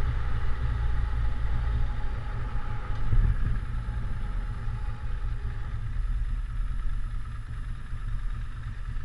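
Motorcycle engine running as the bike is ridden along the street and slows, heard as a steady low rumble from the on-board camera's microphone.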